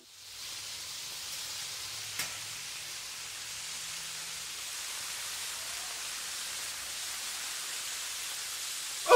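Bacon sizzling in a frying pan, a steady hiss. A single click comes about two seconds in, and a short, loud voice-like cry with a wavering pitch comes at the very end.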